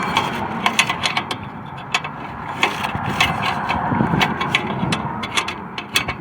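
Irregular clicks, knocks and scrapes of hand tools working on metal, over a steady background noise.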